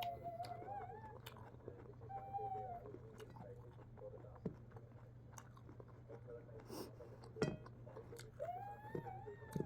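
Eating sounds: chewing and crunching with a few sharp clicks, the loudest about seven and a half seconds in. Over them come high, drawn-out calls that rise and fall, at the start, around two seconds in, and again near the end.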